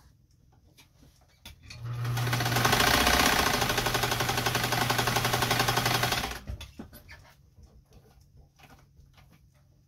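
Japanese class 15 electric sewing machine sewing a short seam in fabric for about four seconds: the motor hums steadily under a fast, even needle rattle that starts about two seconds in and stops sharply after about six. A few faint clicks of handling come before and after.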